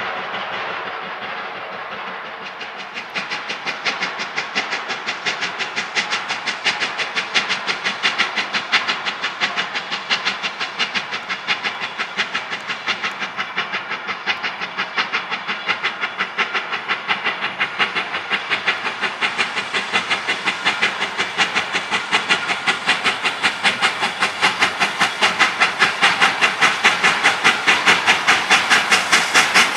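K-36 class 2-8-2 narrow-gauge steam locomotive No. 486 pulling out with its train, its exhaust chuffing in an even rhythm with steam hiss, growing louder as it approaches. The last of a whistle blast fades away in the first second.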